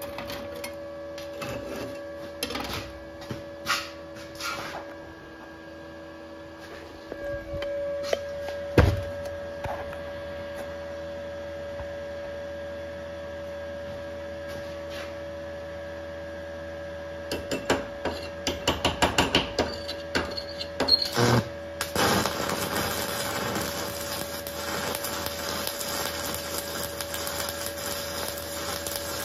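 Inverter welder humming with two steady tones, with one loud thump about nine seconds in. After about 17 seconds comes a quick run of sharp clicks as a stick electrode is struck. From about 22 seconds a steady hissing arc follows: stick welding at 120 amps, the machine under load.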